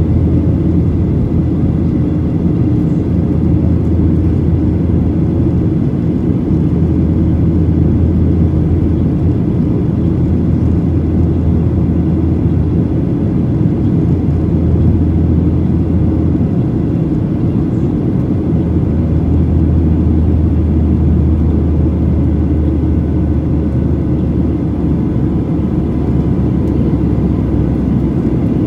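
Cabin noise of a Boeing 737-800 in flight, heard from a seat over the right wing: its CFM56-7B engines and the airflow make a steady, loud low rumble with a faint steady whine above it.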